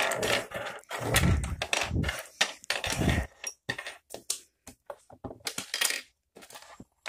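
Small hard-plastic action-camera mounts being set down one after another on a desktop: a run of irregular clicks and knocks, with a few duller thumps in the first few seconds.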